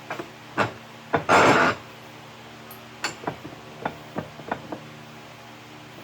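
Hand-tool work: a string of sharp knocks and taps, with one loud scraping rasp lasting about half a second a little over a second in, over a faint steady hum.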